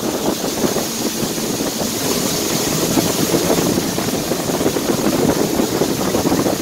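A small boat's motor running steadily under way, with wind buffeting the microphone.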